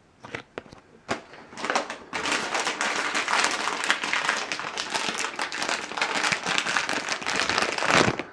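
Foil bag of individually wrapped Warheads sour candies crinkling and rustling close to the microphone as a hand rummages through it. A few light crackles come first, then dense continuous crinkling starts about two seconds in and stops abruptly near the end.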